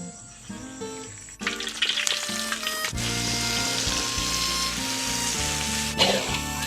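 Food frying in hot oil, a steady sizzle with crackles that starts suddenly about a second and a half in.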